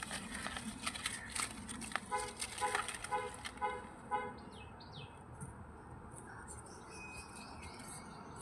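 Birds calling, with a run of about five short, evenly repeated calls in the first half and thin high chirps later, over scattered clicks and rustling.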